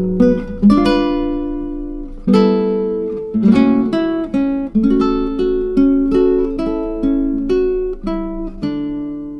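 Background music: acoustic guitar playing a slow melody of single plucked notes. A last chord is struck near the end and rings out, fading.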